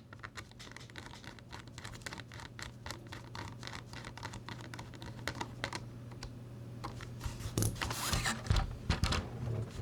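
Hand screwdriver driving small screws into a 3D-printed plastic case part: a run of small irregular clicks and scrapes, with louder handling knocks and rustles near the end.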